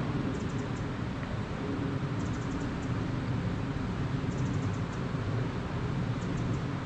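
Steady rush of river water flowing below rapids, with faint short runs of high ticks every couple of seconds.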